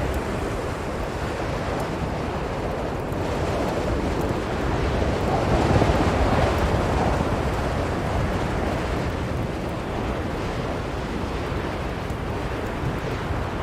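Blizzard wind blowing steadily, a deep continuous rushing that swells in a gust about halfway through, then eases.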